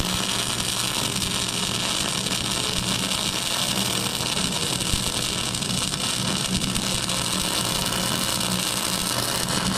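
Arc welder laying a continuous bead to fill a gouged-out crack in a steel tiller frame: a steady crackling hiss with a low electrical hum underneath, unbroken throughout.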